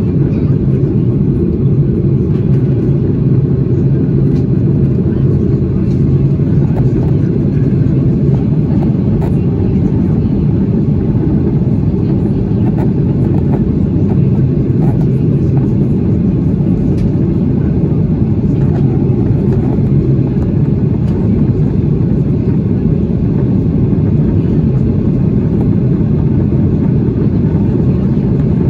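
Steady cabin noise of a Boeing 737-800 in flight, heard from a window seat: the deep, even drone of its CFM56 turbofan engines and the rush of air along the fuselage, unchanging throughout.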